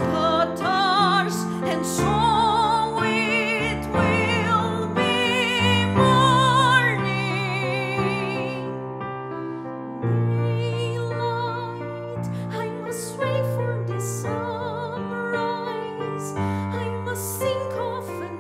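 A woman singing solo with strong vibrato over a sustained instrumental backing track. The voice breaks off for about a second and a half near the middle, then resumes.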